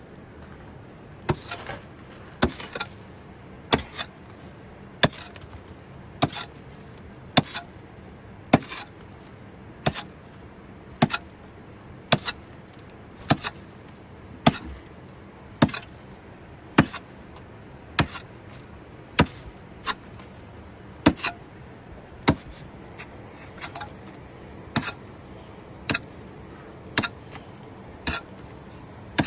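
Hand hammer striking a rock outcrop in steady, sharp blows, a little more than one a second, some landing in quick pairs: chipping at the rock face.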